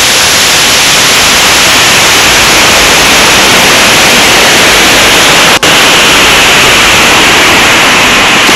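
High-power rocket motor burning during boost, picked up by the onboard camera riding on the airframe as a loud, steady rushing hiss mixed with airflow over the body. There is a split-second dropout about five and a half seconds in.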